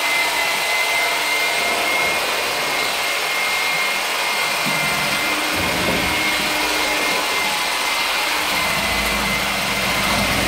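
Vacuum cleaner running steadily: a rushing hiss of air with a steady high whine from its motor, with no change in speed.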